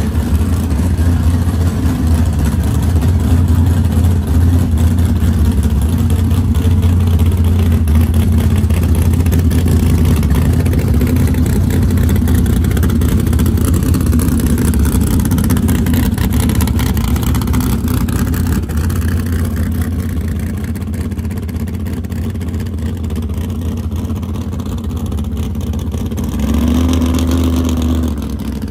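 Small-block Chevy V8 of a 1987 GMC Jimmy drag truck running at low revs through side-exit exhaust, steady and loud as the truck rolls slowly. The sound fades a little as the truck moves off, then rises in pitch with a short rev near the end as it pulls away.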